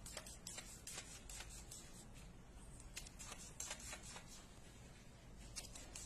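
A cat pawing and scrabbling at a computer monitor and desk: a quick, irregular string of faint taps and scratches.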